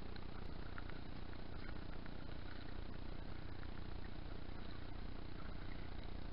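Steady low rumble of open-water ambience on a muffled outdoor camera microphone, with faint scattered small ticks and splashes.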